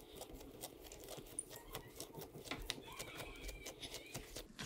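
Hands pressing and rolling soft bread dough into a loaf on a wooden table: faint sticky clicks and soft pats as the dough lifts off the palms and fingers.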